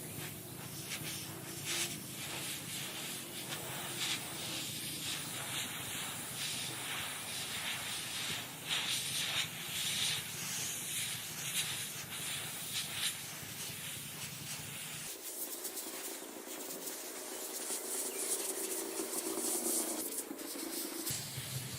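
Hissing spray that comes in louder surges, over a low steady hum that cuts out for several seconds near the end.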